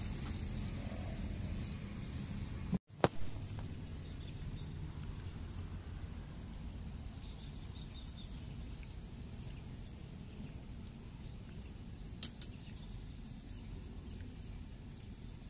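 Steady outdoor ambient noise beside a fishing pond, with two sharp clicks, one about three seconds in and another about twelve seconds in.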